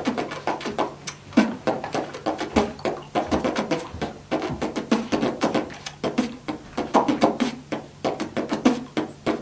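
Beatbox lip roll: the lips flap in a fast, rattling trill, with the outward and inward breaths joined into one continuous sound.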